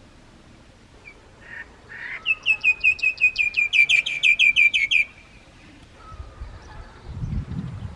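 Myna calling: a couple of short rasping notes, then a fast run of sharp, repeated notes at about six a second that grows louder and stops abruptly. A low rumble follows near the end.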